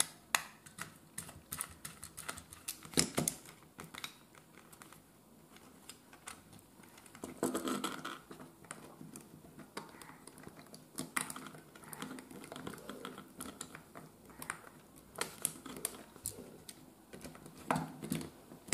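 Small screwdriver turning a terminal screw on a plastic extension board, with irregular light clicks and scrapes of the tip in the screw head and the board being handled, as the red live wire is clamped to the switch terminal.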